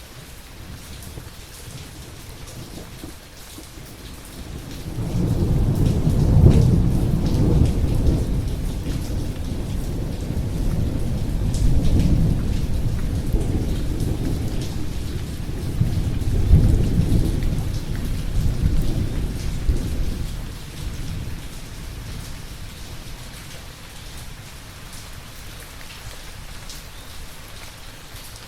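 Steady rain with a long roll of thunder. The thunder builds about five seconds in, swells several times and fades out after about fifteen seconds, leaving the rain.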